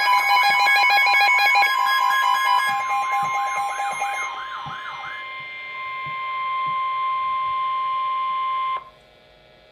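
Weather-radio alert tone: a steady, loud single tone that cuts off abruptly near the end. For about the first five seconds, electronic beeping and a repeating wailing siren warble are layered over it.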